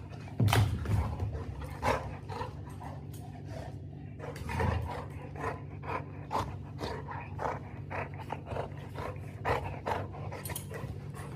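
A pet dog panting in short, irregular breaths during play, over a steady low hum.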